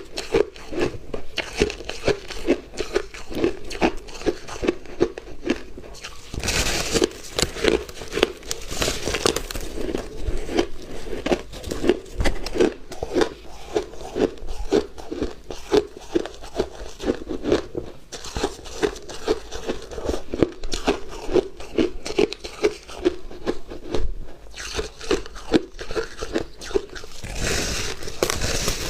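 Close-up crunching and chewing of shaved, refrozen ice, a steady rhythm of a few crunches a second, with louder crunching bites about seven to nine seconds in and again near the end.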